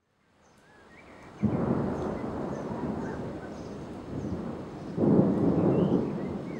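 Thunder rumbling: a peal breaks in sharply about a second and a half in and rolls on, then swells again about five seconds in.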